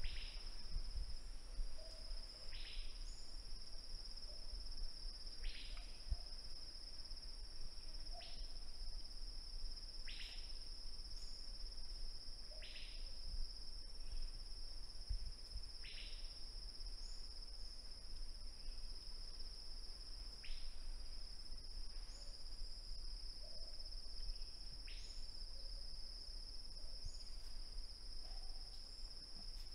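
Outdoor insect chorus: a steady, high-pitched trill with no breaks, with a short falling call that repeats every two to four seconds and a faint low rumble underneath.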